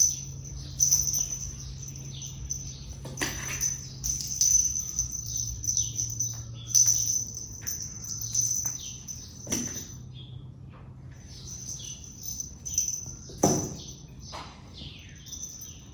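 Small birds chirping over a steady high insect trill, with a low steady hum underneath and a few soft knocks.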